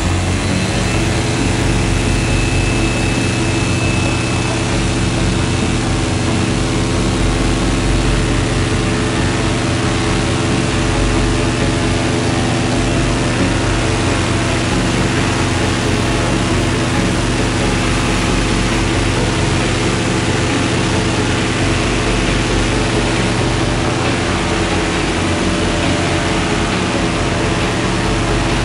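Tandem paramotor's engine and propeller running steadily at high power. The pitch rises in the first second, then holds.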